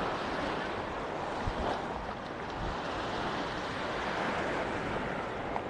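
Small sea waves washing steadily onto a sandy beach.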